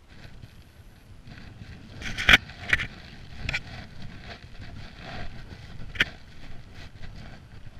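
Footsteps on wet paving, with a few irregular sharp clicks and knocks over a steady outdoor noise. The loudest knock comes about two and a half seconds in, and others come near three and a half and six seconds.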